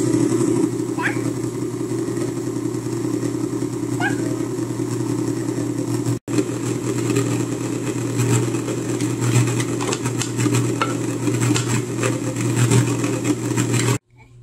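Electric tilt-head stand mixer running steadily, its motor humming as the beater mixes sugar-cookie dough while flour is added. The hum breaks off for an instant about six seconds in and cuts off suddenly near the end.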